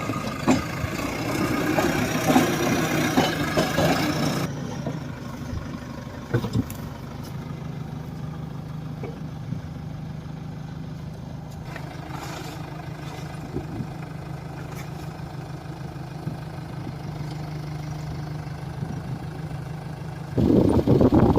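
A JCB 3DX backhoe loader's diesel engine running steadily at idle, louder and busier for the first few seconds. It rises to a much louder rough run just before the end.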